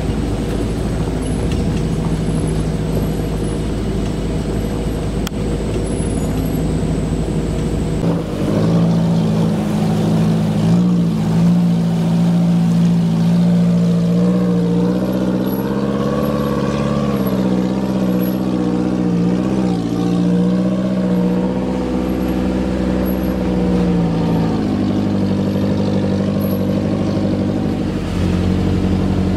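Off-road 4x4 engines running and revving under load, the pitch rising and falling. The engine sound changes abruptly about eight seconds in and again near the end as a different vehicle is heard.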